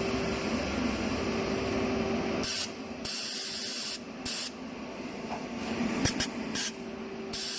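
Shielding gas hissing out of a TIG welder's torch: a steady hiss for about two and a half seconds, then a series of short bursts of hiss starting and stopping.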